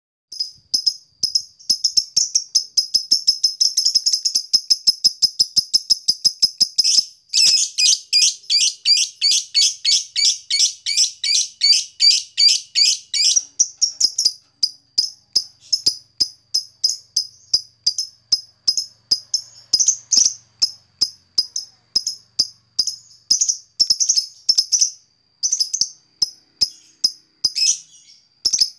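Fischer's lovebird singing the long, rapid 'ngetik' song, a fast string of short, high chirps at about five a second. The chirps grow louder and fuller from about seven seconds in to about thirteen, then come more sparsely.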